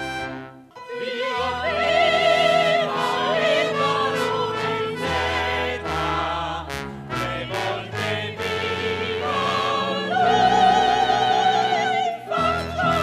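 Operetta music: several voices singing with strong vibrato over an orchestra, starting after a brief break about half a second in.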